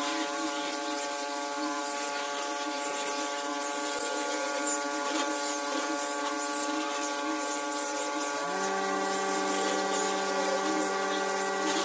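Angle grinder fitted with a sanding disc running steadily while sanding a wooden tabletop: a steady motor whine over the hiss of the abrasive on the wood. The tone deepens about eight and a half seconds in.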